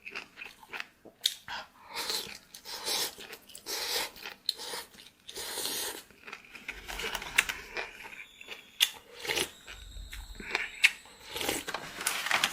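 A person chewing and crunching food, with many short, irregular crunches and clicks.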